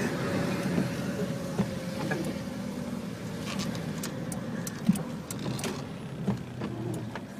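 Car driving slowly on a wet road, heard from inside the cabin: a steady engine and tyre rumble with a faint steady whine and a few light clicks.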